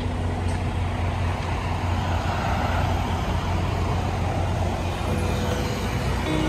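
Street traffic: a steady low rumble, with the tyre-and-engine noise of a vehicle passing close swelling and fading about halfway through.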